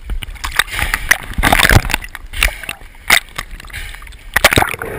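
Choppy sea water sloshing and splashing around a camera bobbing at the surface, in irregular slaps and gurgles.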